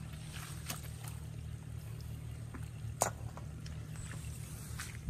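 A freshly caught fish flapping on wet grass and being handled: a few irregular wet slaps and rustles, with one sharp slap about three seconds in.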